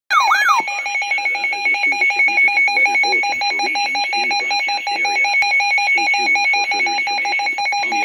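Weather alert radio sounding its warning alarm: a rapid, loud pulsing electronic tone, opening with a brief warbling chirp, signalling that a weather warning has been received.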